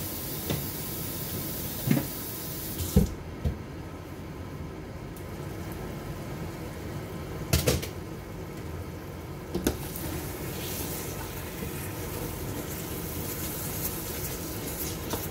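Stainless steel pot of curry on the stove with a steady hiss; about three seconds in the lid comes off with a metal clank, a few more sharp metal knocks follow, then a wooden spoon stirs the thick curry in the pot.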